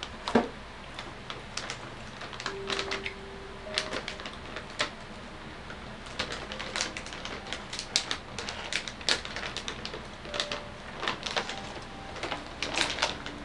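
Plastic bag being handled, crinkling in irregular sharp crackles.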